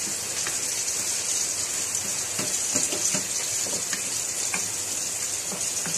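Ground pork sizzling steadily as it sautés in a nonstick frying pan, with a few soft scrapes and taps of a wooden spoon stirring it.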